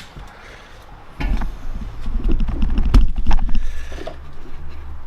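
Irregular knocks and taps of a new wooden building timber being knocked and shifted to level, the loudest about three seconds in.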